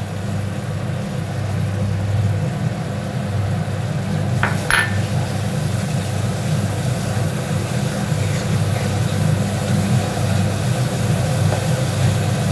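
Wooden spatula stirring and scraping a thick masala in a non-stick kadai, with two sharp knocks of the spatula on the pan about four and a half seconds in, over a steady low hum.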